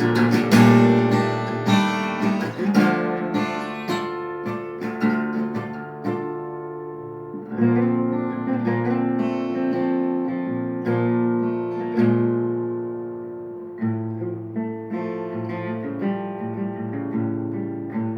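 Acoustic guitar played solo, with chords strummed and plucked and left to ring. It grows sparser and softer toward the end, with fresh chords struck about seven and a half, twelve and fourteen seconds in.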